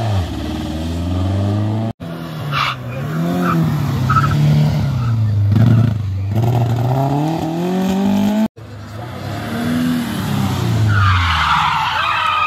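Rally car engines revving up and down as each car takes a tight turn, with tyre squeal. The sound cuts off abruptly twice as one car's pass gives way to the next.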